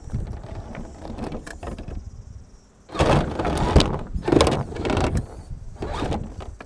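Yikong YK4083 1/8-scale electric RC crawler driving over loose beach pebbles: its motor and drivetrain running while the pebbles crunch and clatter under its tyres. It gets noticeably louder about three seconds in.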